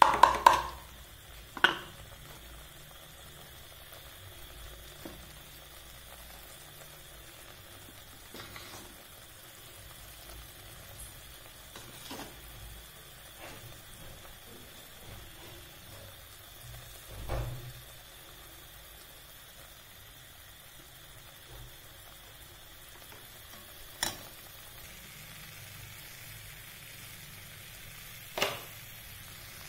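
Thick masala paste sizzling gently in a pan, with a metal spatula scraping and knocking against the pan now and then. The loudest knocks come right at the start and again about a second and a half later.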